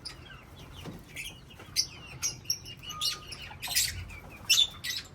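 A colony of small parrots chirping continuously, with several louder harsh calls, the loudest about three quarters of the way through.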